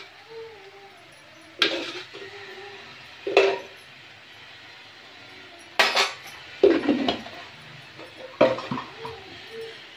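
A metal spoon clinking against kitchen containers and the pan while salt is spooned into the cooking vegetables, about five separate sharp clinks a second or two apart.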